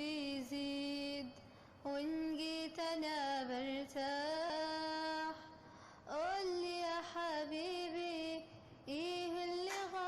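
A girl's voice singing an Arabic song unaccompanied, in long held, ornamented phrases with short pauses for breath: one phrase ends about a second in, and three more begin at about two, six and nine seconds in.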